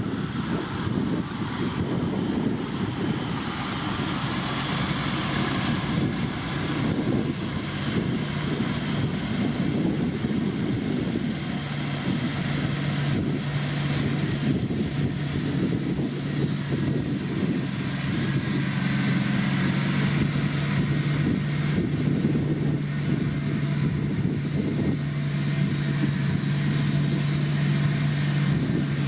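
Diesel engine of heavy road-building machinery running steadily; about halfway in, a steady low hum settles in and holds.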